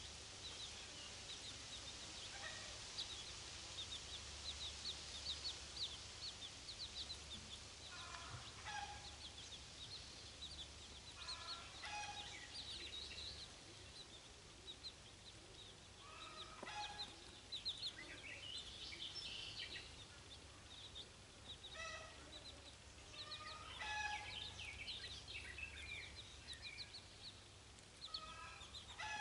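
A brood of chicks peeping constantly in short, high notes, with the mother hen giving short runs of low clucks every few seconds.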